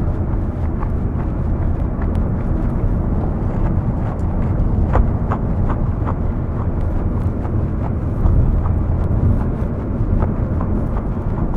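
Aero L-39 Albatros jet's turbofan engine at takeoff power, a steady deep rumble with scattered crackles.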